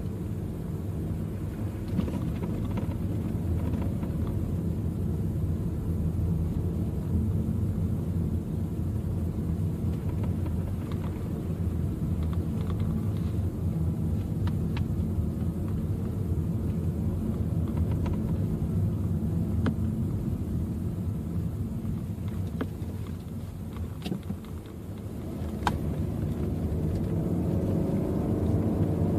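Car driving on a wet road, heard from inside the cabin: a steady low engine and tyre rumble with a few faint clicks. The rumble dips briefly near the end, then grows louder again.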